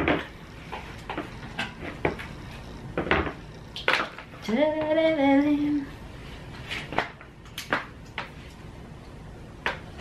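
Hard plastic knocks and clatter as a Tatung halogen electric heater is handled and set down on a plastic stool, a string of separate clicks and bumps. About halfway through, a short voice sound rises and holds for about a second.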